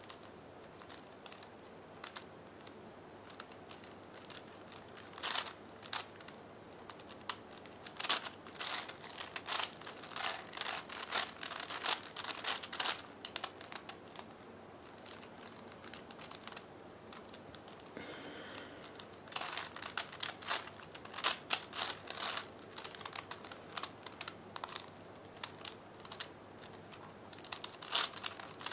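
Plastic layers of a 5x5x5 V-Cube puzzle cube clicking and clacking as they are turned, in quick runs of turns that start a few seconds in and are broken by pauses.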